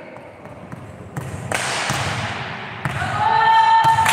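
A volleyball is struck and bounces on a wooden court, giving a few sharp thuds that echo in a large gym hall. Players' voices call out, with one held call near the end.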